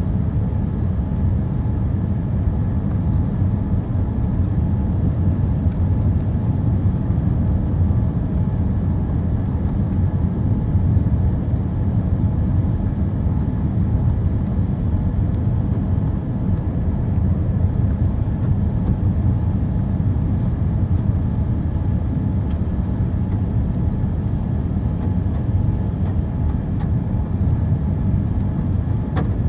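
Steady low rumble of an airliner cabin in flight, the engine and airflow noise of a Boeing 787.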